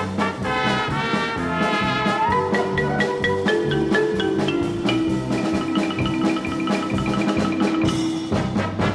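Background music: an upbeat instrumental with a steady beat and a bright struck-note melody.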